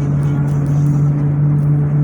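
Volvo B270F bus under way, its MWM 7.2-litre six-cylinder diesel running with a steady droning tone from the driveline, the differential drone ("diferencial roncando") that the bus had when recorded.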